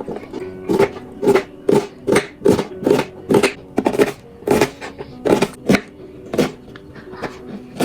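A kitchen knife chopping vegetables on a cutting board, about two chops a second at an uneven pace, over soft background music.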